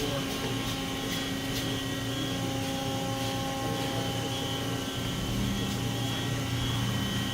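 Awea SP3016 double column CNC machining center running, a steady machine hum with several constant whining tones.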